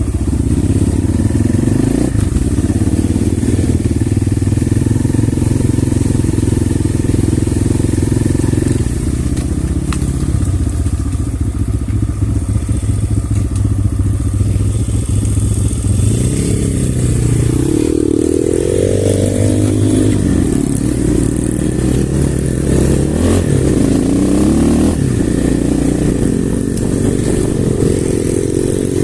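Off-road motorcycle engine running steadily at first, then revved up and down repeatedly from about halfway through.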